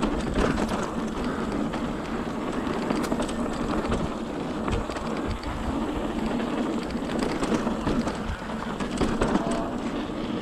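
Kona Satori mountain bike rolling fast over a dirt singletrack: a steady rush of tyre noise on dirt, with many small clicks and rattles from the bike as it runs over bumps.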